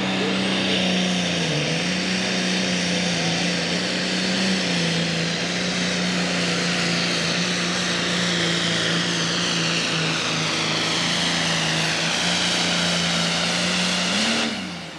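Pro Stock pulling tractor's turbocharged diesel engine running flat out under load while pulling the sled. A high whine sits above the steady engine note and slowly falls in pitch, and the engine note dips briefly twice in the first few seconds. Near the end the engine revs up briefly and then cuts off sharply.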